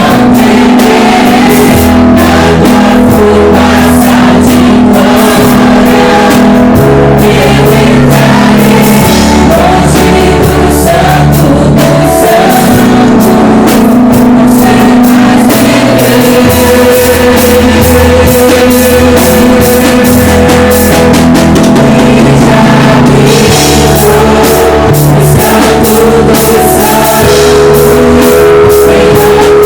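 Live worship band playing a praise song: drum kit, guitar and bass with singing over it, loud and continuous.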